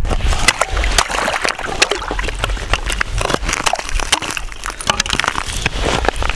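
Slush and water sloshing in an ice-fishing hole, with many sharp, crackly clicks of ice shards knocking together.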